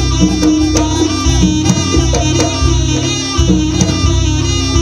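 Live Javanese jaranan campursari music: a fast, ornamented wind-instrument melody over a steady drone and repeated drum strokes.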